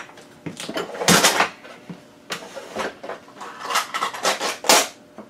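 Small objects and tools being handled and set down on a workbench: a series of irregular knocks and clatters, the loudest about a second in.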